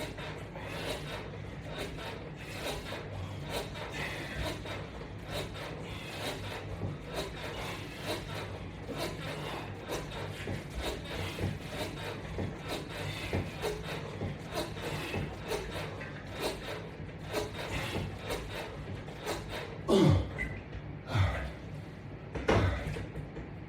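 Repeated bench pull-down crunches against resistance bands and straps: a steady run of rubbing and scraping with light clicks, over a low steady hum, and a few louder, falling sounds near the end.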